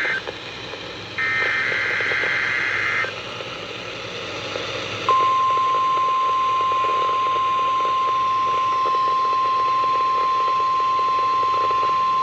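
NOAA Weather Radio Required Weekly Test over a weather radio: the end of one SAME header data burst, then another two-tone data burst from about 1 to 3 seconds in, then the steady 1050 Hz warning alarm tone starting about 5 seconds in. A steady radio static hiss lies under it all.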